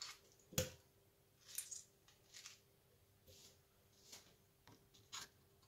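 Faint, soft squishes and light taps of peeled peach pieces dropped into a plastic blender beaker, with a sharper tap about half a second in.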